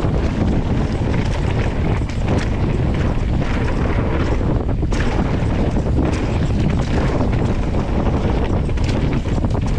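Loud, steady wind buffeting on the microphone of a camera riding along on a mountain bike, with scattered knocks and rattles.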